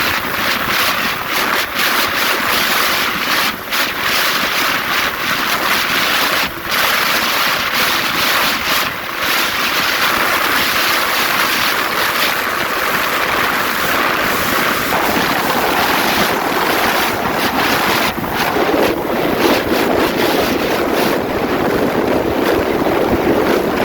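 Wind rushing over the microphone of a moving Aprilia RS125 two-stroke motorcycle, with the bike's running noise under it. The sound is loud and steady, and its character shifts about 15 seconds in.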